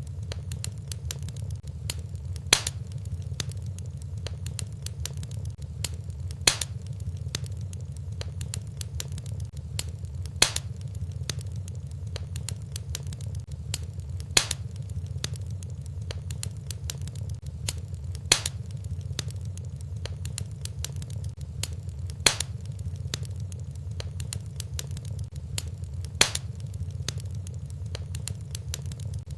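Fireplace fire crackling over a steady low rumble, with a sharp pop about every four seconds at very even spacing, as in a looped fire recording.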